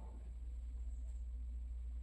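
A steady low hum, with no other clear sound.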